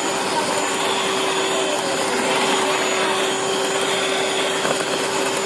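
Electric hand mixer running steadily, its beaters churning butter-and-sugar batter in a stainless steel bowl as an egg is beaten in, with a constant motor hum.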